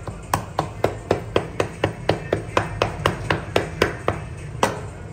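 A run of sharp, evenly spaced knocks, about four a second for nearly four seconds, then one more knock about a second later.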